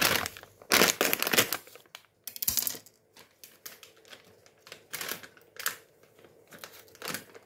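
Plastic flour bag crinkling loudly as it is opened, in bursts during the first second and a half and again around two and a half seconds in. Softer rustling and light knocks follow as flour is poured and scooped into a plastic mixing bowl.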